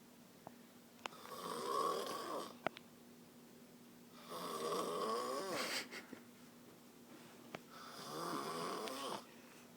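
A person snoring in their sleep: three long snores, one every three seconds or so, with quiet gaps between them and a few faint clicks.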